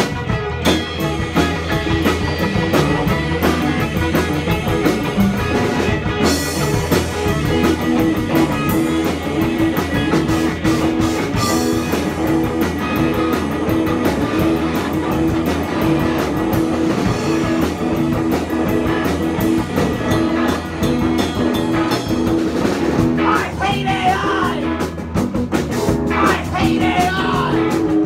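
Punk rock band playing live: electric guitar, bass and drum kit at a steady driving beat, with a voice singing near the end.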